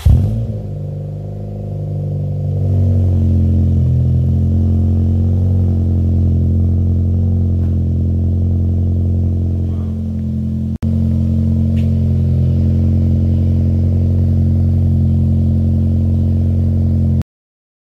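Toyota Corolla E11's 4E-FTE 1.3-litre turbocharged four-cylinder running steadily through a 3-inch stainless steel exhaust with two Simons Turbonett mufflers and a 200-cell sports catalyst: a loud, deep, even drone from the tailpipe. It grows louder a couple of seconds in, breaks off for a moment about eleven seconds in, then carries on until it cuts off suddenly near the end.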